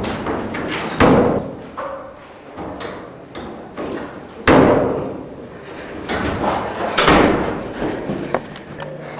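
Classroom door banging shut: three loud bangs about a second, four and a half and seven seconds in, each ringing out in the room, with smaller knocks between. A short high squeak comes just before each of the first two bangs.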